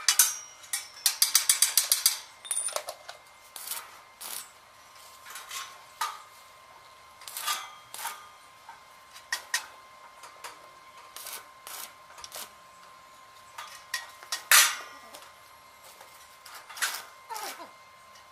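Hand tool tapping and knocking on square metal tubing of a railing frame: a quick run of about a dozen rapid metallic taps near the start, then single knocks about once a second.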